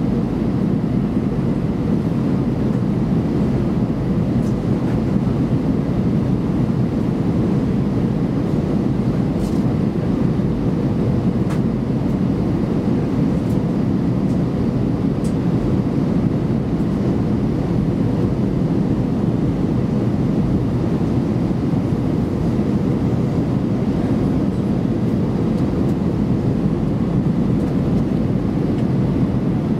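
Airbus A320-214 cabin noise during the descent: a steady rush of airflow and CFM56 engine noise heard from a window seat over the wing, low and even, with a faint steady hum.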